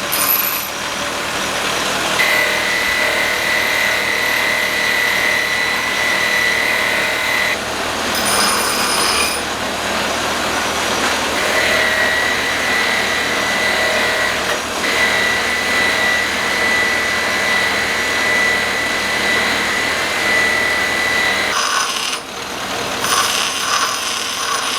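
Power grinder cleaning up steel bar stock. It runs as a steady high whine with a grinding rasp, breaking off briefly about a third of the way through and again near the end.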